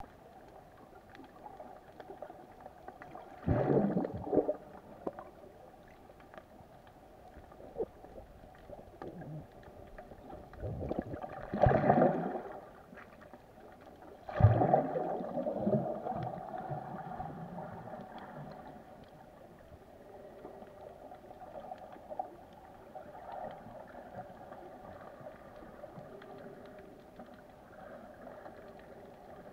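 Water heard through a camera held under water: a low, muffled sloshing with three louder rushes of water and bubbles, the last tailing off slowly.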